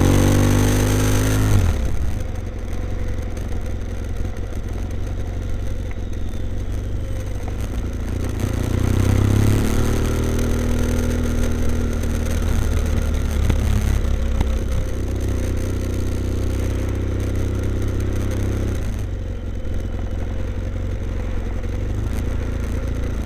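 BMW F800ST's 798 cc parallel-twin engine through a Blue Flame twin-port exhaust with both baffles in, running at low revs while the bike moves slowly through traffic. The revs drop within the first two seconds and rise again briefly about nine seconds in.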